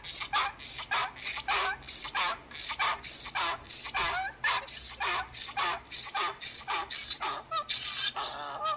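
An animal giving repeated high cries, about three a second, each falling in pitch.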